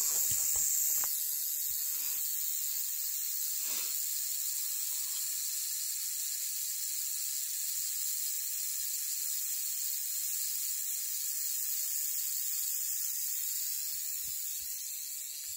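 Coiled rattlesnake rattling its tail in defence: a steady, unbroken high-pitched buzz.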